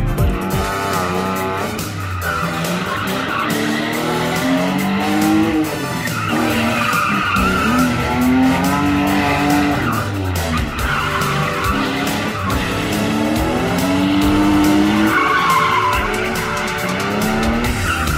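Car engines revving hard, the pitch rising and falling every couple of seconds, as cars drift, with tyres squealing in long stretches on the tarmac.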